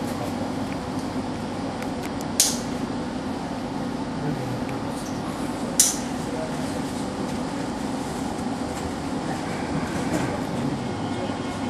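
Steady running hum of a Hiroshima Electric Railway streetcar heard from inside the car as it creeps forward, with two short, sharp hisses about three and a half seconds apart.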